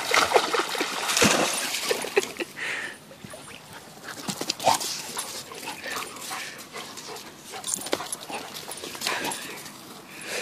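Dog splashing at a run through shallow water in the first couple of seconds, then a dog whimpering briefly a few times between scattered small splashes and rustles.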